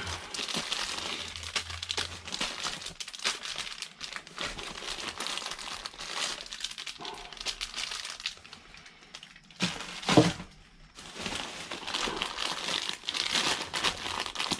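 Plastic bags and food packaging crinkling and rustling as they are rummaged through, in a continuous crackle, with a brief louder thump about ten seconds in.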